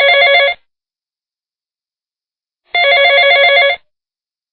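Electronic telephone ring: a trilling, warbling tone in bursts about a second long, heard ending half a second in and again about three seconds in, with dead silence between.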